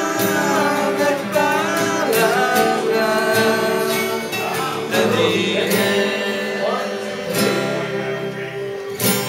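A man singing while strumming a steel-string acoustic guitar, with a nylon-string classical guitar played alongside.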